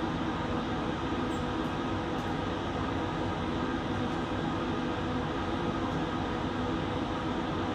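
Laminar flow hood blower running steadily, an even whirring rush with a few faint steady tones in it.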